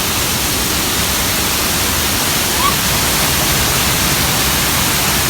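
Steady loud rushing noise with no clear pattern, like wind or hiss on the microphone. A brief faint chirp about two and a half seconds in.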